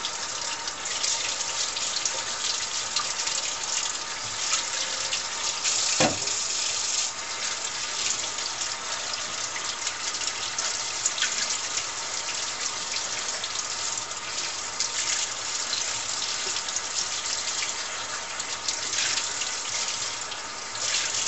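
Kitchen faucet running steadily as aluminium pistons are rinsed by hand under the stream, with one sharp knock about six seconds in.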